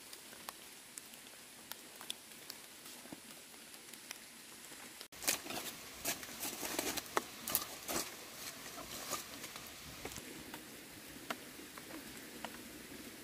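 Small campfire of split bamboo and sticks crackling: faint, sparse snaps at first, then a sudden run of loud sharp pops and crackles about five seconds in that thins out again over the following few seconds.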